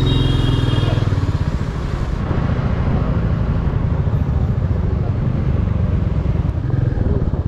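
Motorcycle engine running steadily at low revs under the rider, a dense pulsing rumble with road and wind hiss over it. A brief high-pitched tone sounds in the first second.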